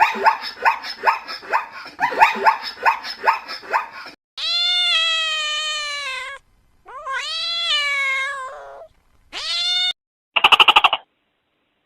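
Cat meowing: a quick run of short calls, then two long drawn-out meows and a shorter one, followed by a brief buzzy call near the end.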